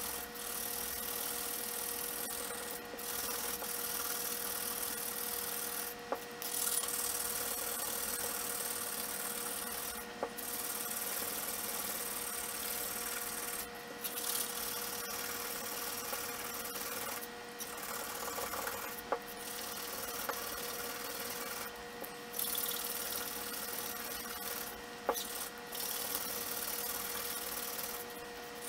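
Steady rubbing as an abrasive strip is worked around the copper commutator of a 1950s Federal Model 17 electric motor's armature to polish it. The rubbing breaks off briefly every few seconds.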